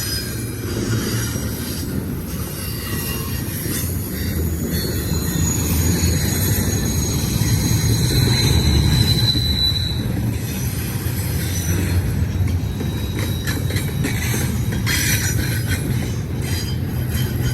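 BNSF intermodal freight train rolling by on a curve: a steady low rumble of wheels and cars on the rails, with a thin high flange squeal for several seconds in the middle and scattered clacks of wheels over rail joints.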